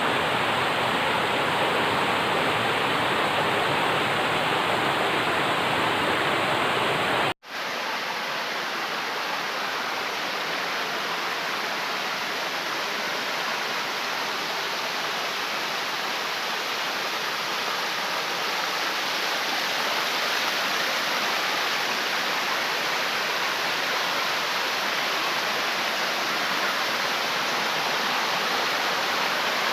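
Steady rushing of flowing water, like a stream or small waterfall, with an abrupt cut about seven seconds in to a slightly quieter, thinner rush.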